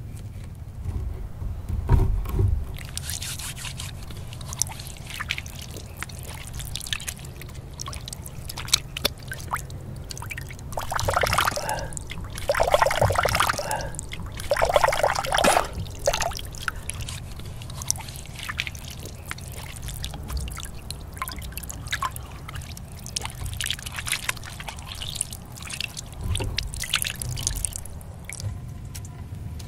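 Water trickling from a bamboo spout and splashing into cupped hands, with scattered drips. The splashing gets louder for a few seconds a little before the middle as the hands are rinsed.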